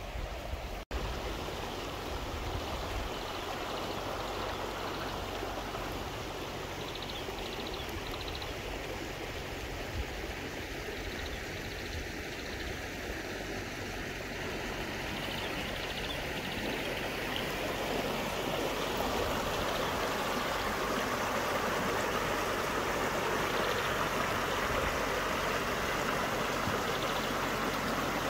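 River water flowing in a steady rush, growing somewhat louder about two-thirds of the way through.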